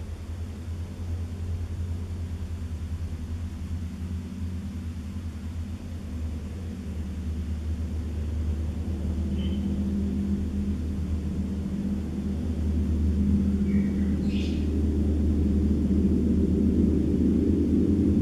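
Giant 200 cm Javanese gong played with a soft-headed mallet: a deep, steady hum that swells gradually louder as higher overtones build up over it.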